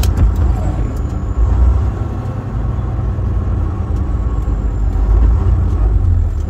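Semi-truck diesel engine and road noise heard inside the cab as a steady low rumble, with a sharp click right at the start.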